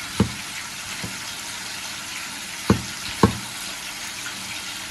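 A cleaver slicing garlic cloves on an end-grain wooden chopping board, heard as four separate knocks of the blade on the wood. Under them is the steady sizzle of chicken frying in oil.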